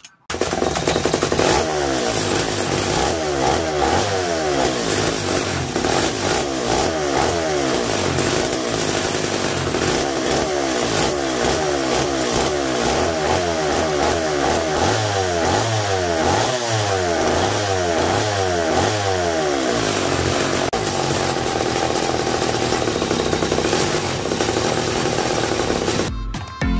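Small two-stroke chainsaw engine, off its saw and bench-mounted, running loud while its carburettor is being adjusted. It revs up and down over and over, then settles into steadier running for the last several seconds.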